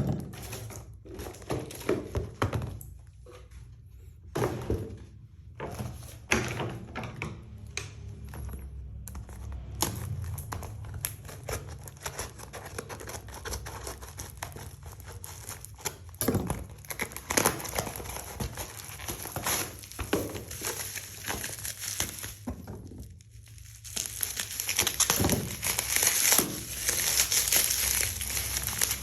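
Packaging being handled and opened: irregular knocks and thunks of a box and parts being moved, with plastic crinkling that grows dense over the last few seconds.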